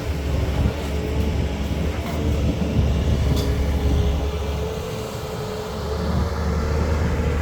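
Diesel engine of a CAT hydraulic excavator running under load with a steady low drone. It eases off about five seconds in and picks up again a second later. A few faint metallic clicks come through.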